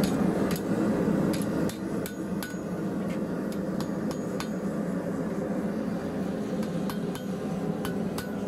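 Hand hammer striking a red-hot square steel bar on an anvil, sharp blows at an uneven pace of roughly two a second. Under the blows, the steady running of a gas forge.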